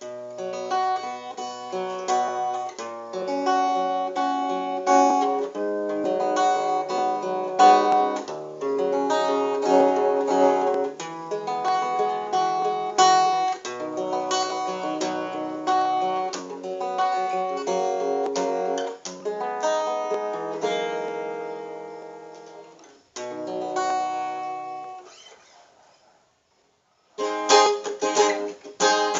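Small 12-fret Groovin GAS150NM acoustic guitar being played, plucked notes and chords in a continuous run. The playing breaks off briefly near the end, rings out into silence, then starts again about a second later.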